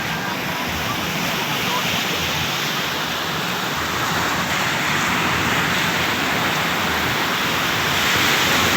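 Ocean surf breaking on a beach: a continuous rushing wash of waves that grows a little louder near the end.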